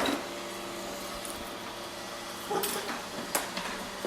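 Robot vacuum running with a steady hum, with a few short knocks at the start and again about two and a half and three and a half seconds in.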